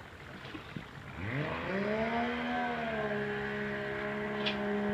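A motor starts about a second in, its pitch rising quickly to a steady whining hum that holds to the end, with a brief dip partway through. A short light clink near the end.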